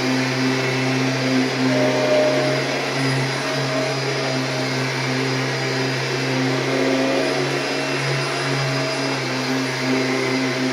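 Kirby G6 upright vacuum cleaner running steadily while vacuuming a mattress, a constant motor hum with a rushing airflow noise.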